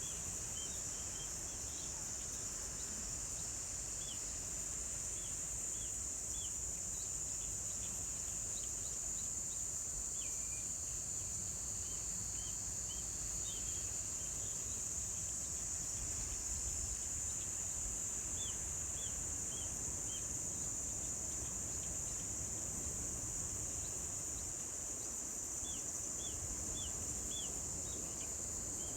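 Insects singing in a continuous high, steady trill, with short high chirps coming in small groups of three or four every few seconds over a low background rumble.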